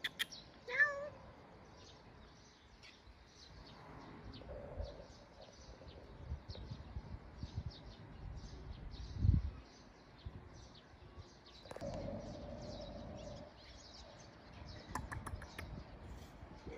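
Small birds chirping over and over, with a short rising call about a second in and a dull thump about nine seconds in.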